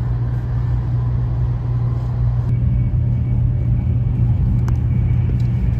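Steady low rumble and running noise of a passenger train in motion, heard inside the carriage.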